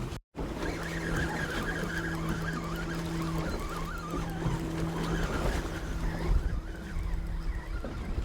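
A boat motor running with a steady, low hum over a constant rush of wind and water. The sound cuts out for an instant just after the start.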